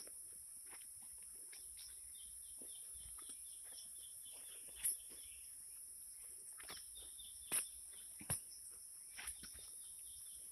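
Faint garden ambience: a steady high-pitched insect buzz, with a bird chirping in quick runs of short notes about two seconds in and again near seven seconds. A few soft thumps of footsteps on soil.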